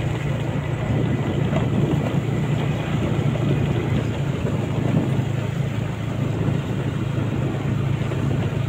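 A vehicle engine running steadily at a constant low hum, with wind rushing over the microphone.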